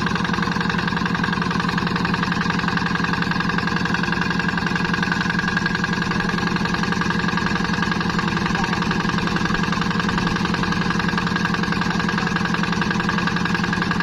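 Engine running steadily at an even speed, with a fast, regular firing pulse.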